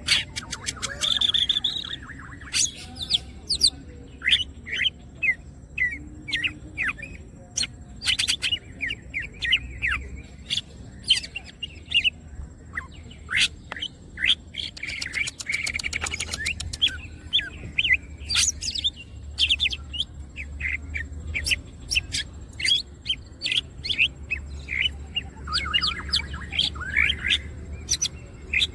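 Green leafbird (cucak ijo) singing continuously: a fast, varied run of sharp chirps and quick whistled sweeps, twice broken by a short buzzy rattle.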